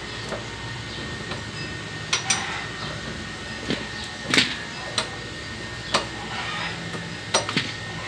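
Metal clinks of a wrench on a scooter's front axle nut as the nut is undone: about eight sharp, separate clicks, the loudest about halfway through, over a steady faint hum.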